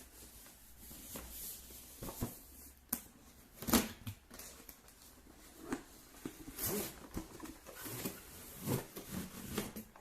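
Packaging being handled and unpacked: irregular rustling with scattered light knocks, the sharpest knock a little under four seconds in.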